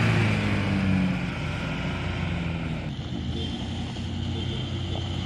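A 4WD ute's engine running as it drives slowly past at low speed, its hum fading as it moves off. After a cut about three seconds in, the quieter, steadier engine of a Toyota LandCruiser 76 Series crawling up a dirt mound.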